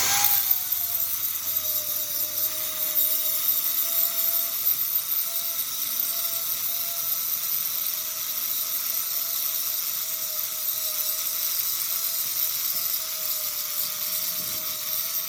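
A high-speed power tool running steadily with a high whine over a hiss. It starts abruptly, its pitch dips a little in the first second or two, and then it holds steady.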